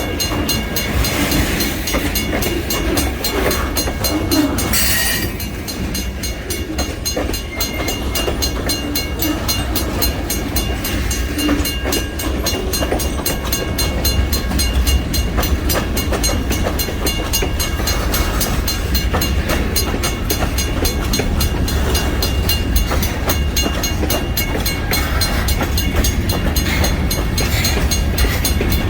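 A freight train's cars roll past with a steady low rumble and the clicking of wheels over the rail. There is a brief high-pitched squeal about five seconds in.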